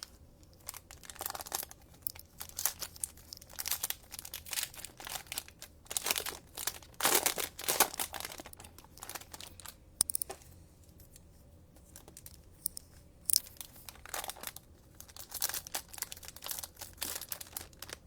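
Cellophane wrappers of Panini Mosaic football card cello packs being torn open and crinkled by hand, in irregular bursts with a quieter lull about ten seconds in.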